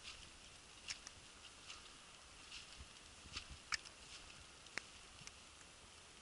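Wet snow and sleet falling, flakes and drops landing on the camera and microphone as faint, irregular ticks and taps over a low hiss. The sharpest ticks come a little past halfway and about three-quarters through.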